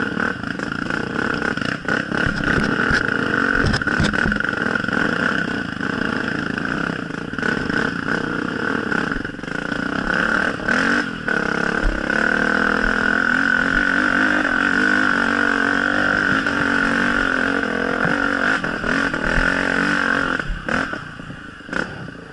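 Dirt bike engine running on a muddy trail, its pitch rising and falling with the throttle, with a few sharp knocks from the bike over rough ground.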